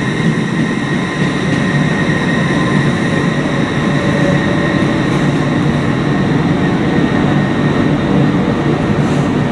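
A train running: a steady rumble with a thin, steady high whine over it.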